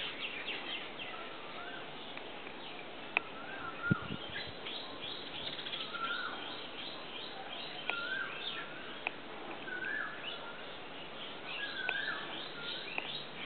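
Birds calling in the trees: a short, bending call repeats about every two seconds over constant high twittering and chirping from small birds. A couple of sharp knocks come a few seconds in.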